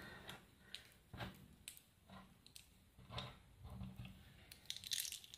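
Faint, scattered clicks and light knocks of small household objects being handled and sorted into a box, with a quick run of clicks near the end.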